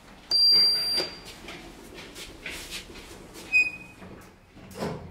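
Lift signal beeps: a loud, high-pitched beep lasting under a second, then a shorter, lower beep about three seconds later. A dull thump comes near the end.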